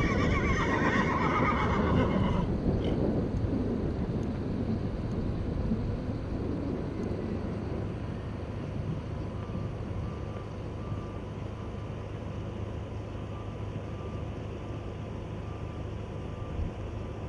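A horse whinnies at the start: one long wavering call lasting about two and a half seconds. After it there is only a steady low background rumble.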